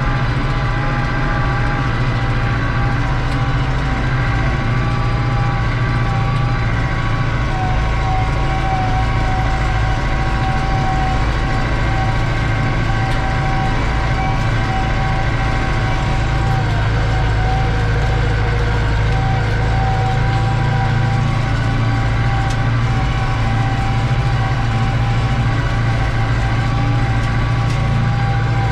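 New Holland TD85 tractor's turbo diesel engine working steadily under load while pulling a disc harrow, heard from inside the cab: a low engine drone with a steady whine from the turbo above it.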